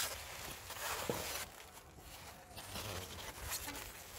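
Rustling and light knocks of bags and cargo being handled, in irregular short bursts.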